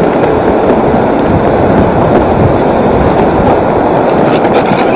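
Loud, steady rushing of the open, fast-flowing Zanskar River running beside the ice shelf.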